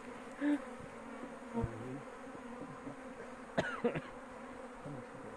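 Honeybees buzzing in a steady hum around an opened colony, with a few short clicks or knocks.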